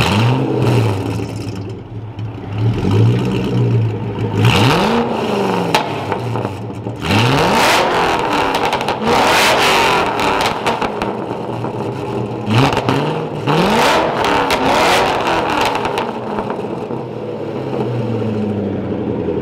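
2005 Ford GT's supercharged V8 with a catless Fi valvetronic exhaust, revved hard from a standstill about seven times, each rev sweeping up and dropping back to idle, echoing in a concrete parking garage. It settles back to a steady idle near the end.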